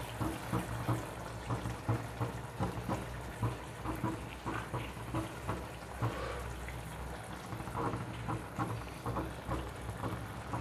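Thick mustard-paste gravy simmering in a wok, bubbling and spluttering with irregular small pops, over a low steady hum.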